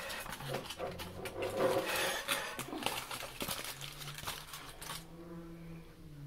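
Aluminium foil sandwich wrapper crinkling and rustling as it is handled and opened, a dense crackle of many small sharp ticks that stops about five seconds in. A low steady hum sounds under it from about four seconds in.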